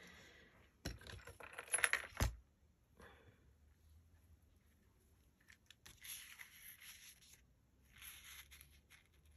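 Quiet handling of lace and craft materials on a cutting mat: soft rustling, a few small clicks, and a sharper clink about two seconds in.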